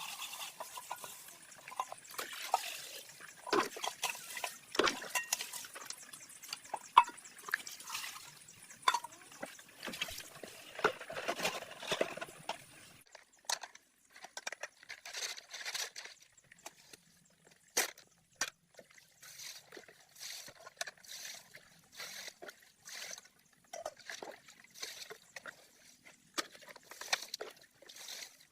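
Water sloshing, trickling and splashing in short irregular bursts, with scattered knocks and clicks; the steady background hiss drops away a little before halfway through.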